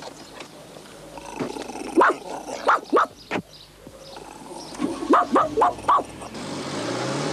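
A dog giving short yelps and barks in quick little runs. Near the end a car engine starts to rev up, rising in pitch.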